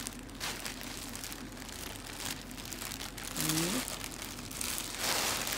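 Clear plastic bag crinkling and rustling as it is handled, with the loudest rustle about five seconds in.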